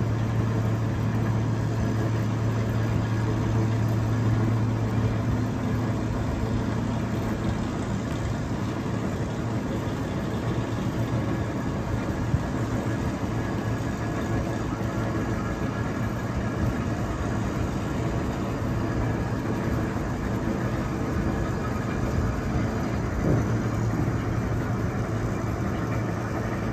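Crane machinery running steadily while lifting a heavy boat, a low engine hum over a wash of mechanical noise; the hum eases about ten seconds in.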